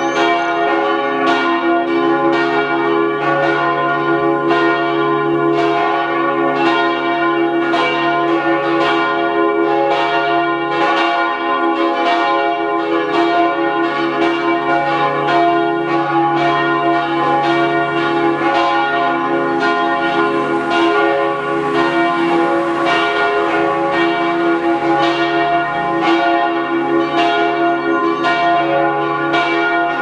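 Church bells of St. Trinitatis ringing together in a continuous peal, their strokes overlapping in a steady, even rhythm over the lingering hum of their tones.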